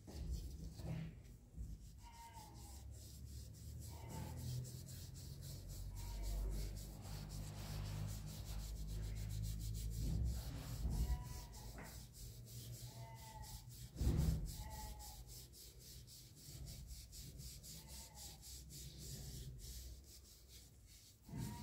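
A felt polishing pad rubbing by hand over a small brass vase coated in polishing paste: a soft, uneven rubbing with handling rumble. There is one brief knock about two-thirds of the way through.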